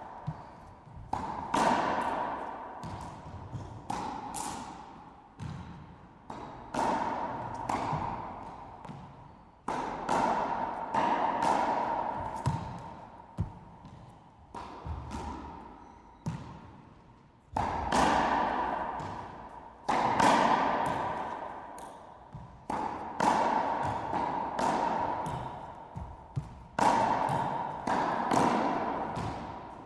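Racquetball game: the ball is struck by racquets and bounces off the court's walls and floor in rallies of sharp hits, at times a few a second, with short pauses between. Each hit rings on in the echo of the enclosed court.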